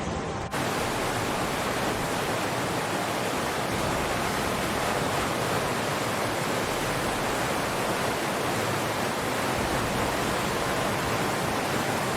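A steady, even rushing noise that starts abruptly about half a second in and holds at one level, with no separate events.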